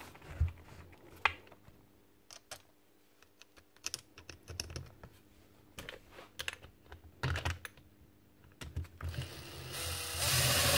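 Scattered light clicks and knocks of metal parts as the gear head of a Makita 9069 angle grinder is fitted together by hand. From about nine seconds in, a power drill-driver runs steadily, driving in a gear-housing screw. The drill is the loudest sound.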